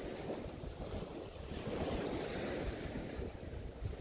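Wind rumbling on the microphone, with surf washing on the beach.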